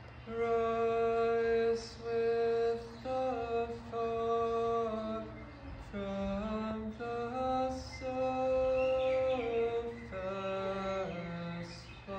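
A man singing slow, long-held notes, each lasting a second or more, with short breaks for breath; the pitch drops lower about halfway through and again near the end.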